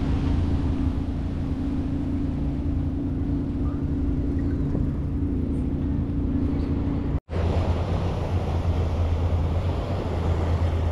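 Steady riding noise of a bicycle rolling along a paved path, with wind on the camera microphone and a constant low hum. After a sudden cut about seven seconds in, wind and waves washing against a rocky sea shore.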